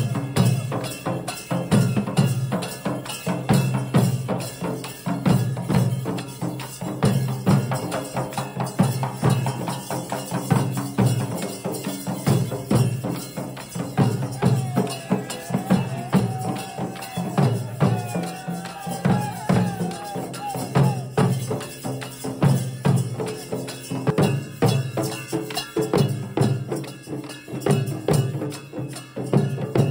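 Dollu Kunitha drumming: a troupe beating large dollu barrel drums with sticks in a fast, steady, driving rhythm. A wavering pitched sound rises above the drums for several seconds around the middle.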